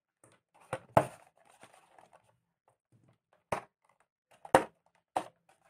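Handling knocks and light rustling as boAt Rockerz 330 neckband earphones are worked out of a cardboard tray insert: about five sharp clicks of plastic earbuds and cable against cardboard and the table, the loudest about a second in.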